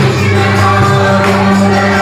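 Devotional bhajan music: a group singing with instrumental accompaniment, with steady held notes under the voices.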